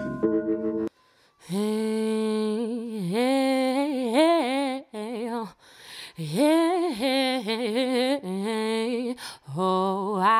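A solo voice singing wordless, drawn-out notes with vibrato, unaccompanied, in phrases of a few seconds with short breaks. In the first second, the tail of an instrumental music track cuts off before the voice begins.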